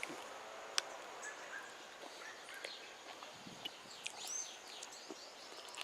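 Faint birdsong: scattered short chirps and a few arching whistled notes, busiest about four seconds in, over a quiet outdoor background. A single sharp click sounds about a second in.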